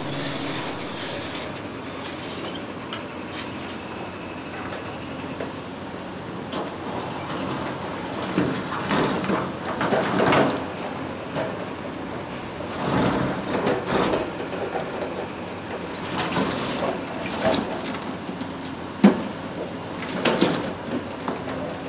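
Caterpillar 336E excavator working on railway track demolition: a steady machine background under irregular bursts of metal scraping and clanking, with one sharp knock near the end.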